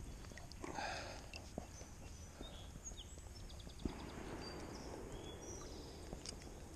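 Small birds chirping over a low outdoor background, with a brief scuffling noise about a second in and a sharp knock just before four seconds. A steady hiss rises a little from about four seconds.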